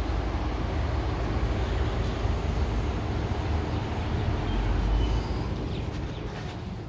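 Steady outdoor city rumble heard from a high-rise balcony: a low, even hum of distant road traffic that fades over the last two seconds or so as the phone moves back indoors.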